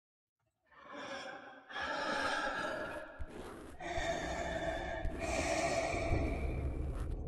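Heavy, breathy vocal sounds: a run of about five long breaths or gasps, starting just under a second in after silence.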